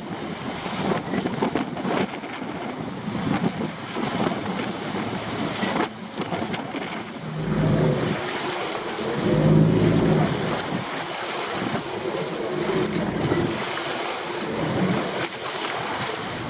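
Water rushing and splashing along the hull of an outrigger boat under way at sea, with wind buffeting the microphone. The rush swells louder for a few seconds about midway.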